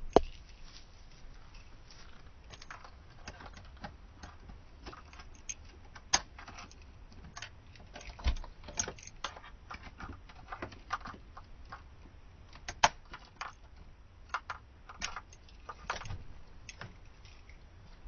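Keys jangling and a door lock clicking as a door is unlocked and opened: a long series of irregular sharp clicks and knocks, a few of them loud.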